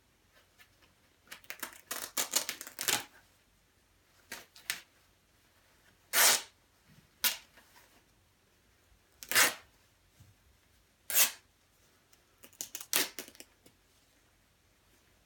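The nylon shell and stitching of a quilted down jacket being torn open by hand, in short rips with crackly fabric rustling. There are about eight bursts a second or two apart, the loudest single rips near the middle.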